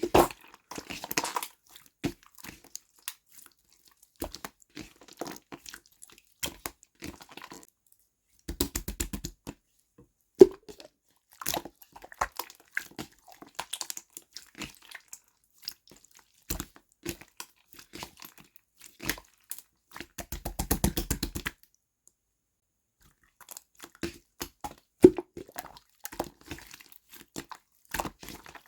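Clear slime being squished and pressed by hand: irregular sticky clicks and small air-bubble pops, with two runs of rapid crackling pops, about nine and twenty-one seconds in.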